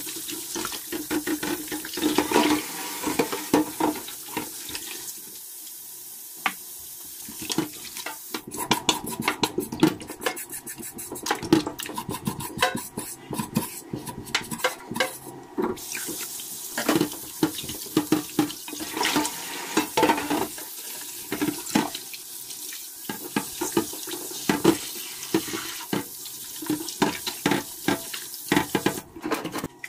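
Tap water running onto a slab of pork belly in a dish in a stainless steel sink, with splashing and the wet slap and rub of hands washing the meat. Through the middle, a knife scrapes over the pork skin in quick strokes.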